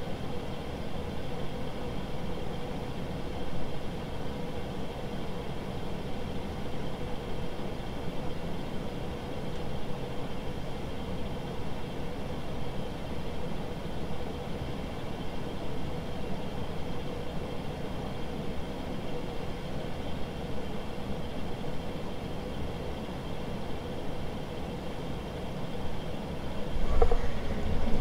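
Commander Angel 52-inch ceiling fan running steadily: a constant motor hum with a steady mid-pitched tone under the whoosh of the blades. Near the end a low rumble of camera handling rises over it.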